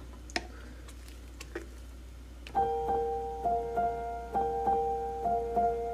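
Soft background piano music comes in about two and a half seconds in, a pattern of repeated notes. Before it there is only a low hum and a couple of faint clicks.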